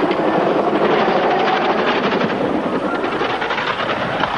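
Helicopter rotors and engine running steadily as the helicopter, its tail caught in its lifting cable, goes out of control beside a church spire.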